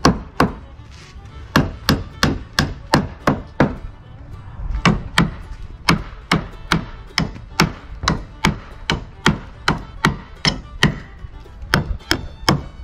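Claw hammer striking the wooden framing of an old pop-up camper in a rapid series of sharp blows, about two to three a second, with short pauses about a second in and around four seconds in.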